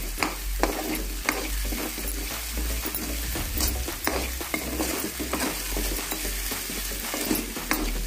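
Chopped onions sizzling in hot oil in a metal kadhai as a metal spatula stirs them, scraping and clicking irregularly against the pan.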